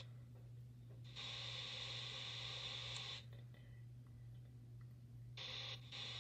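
Faint room noise: a steady low hum under a hiss that cuts out, comes back about a second in, drops out again past three seconds and returns near the end.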